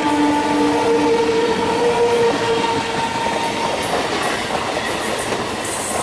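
An ICF-built electric multiple-unit (EMU) local train running past at speed, its wheels clattering and rumbling over the track. Steady whining tones ride over the rumble in the first half and fade out about halfway through.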